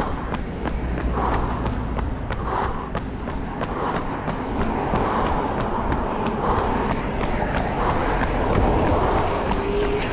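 A runner's footsteps, about three a second and plainest in the first few seconds, over a steady low rumble of wind and traffic noise on the camera's microphone.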